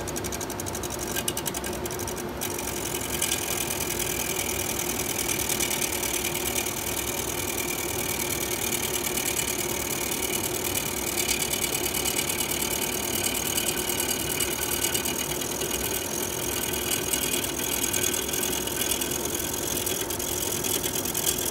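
Wood lathe spinning a black walnut blank while a spindle roughing gouge cuts it round: a steady motor hum under a dense, fast rhythmic chatter and hiss of the gouge shearing wood, which picks up about three seconds in.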